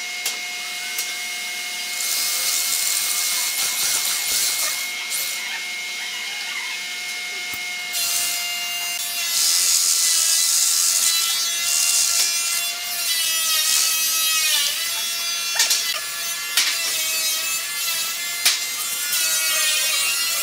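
Corded electric drill with a large flat-bottomed boring bit cutting hinge-cup recesses into a pine panel: a steady motor whine with the scraping hiss of the bit shaving wood, the pitch sagging and recovering as the bit bites. A few sharp knocks come near the end.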